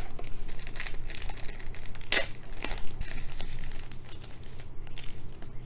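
Thin white packaging wrap crinkling and rustling as hands pull a small dash cam rear camera out of it, a run of irregular crackles with the loudest about two seconds in.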